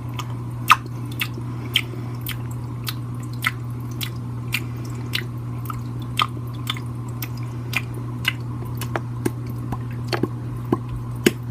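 Goldfish smacking its mouth at the water surface, making a short wet click about twice a second, over a steady low hum.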